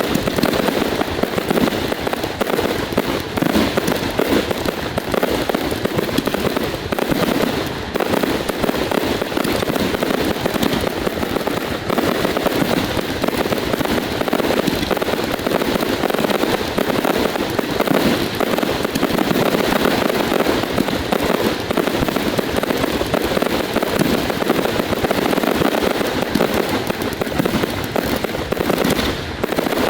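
Fireworks finale barrage: dense, rapid reports and crackle firing without a break, easing off right at the end.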